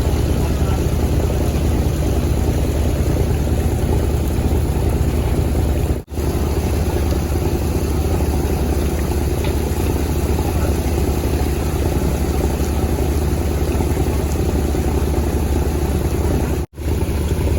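A boat engine running steadily, with a low, even drone. The sound cuts out briefly twice, about six seconds in and again near the end.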